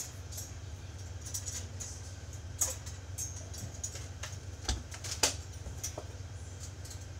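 A child moving about the room: scattered light knocks and clicks, with two louder ones about five seconds in, over a steady low hum.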